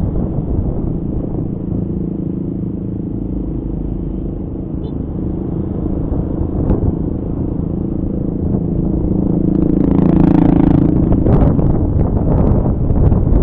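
A Honda Scoopy scooter's small engine running steadily while riding, under wind buffeting the microphone that grows louder over the last few seconds.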